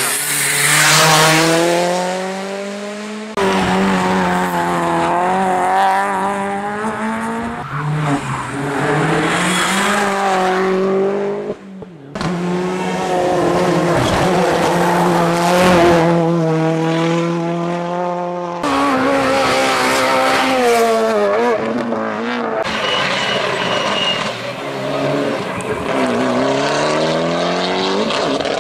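Rally-prepared race cars accelerating hard past one after another, engines revving high and rising in pitch, then dropping at each gear change. The sound jumps abruptly from one car to the next several times.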